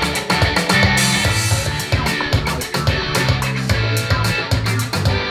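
Music with a steady drum beat and a sustained bass line, played back through a Watson 9080 stereo speaker. A cymbal-like swell comes in about a second in.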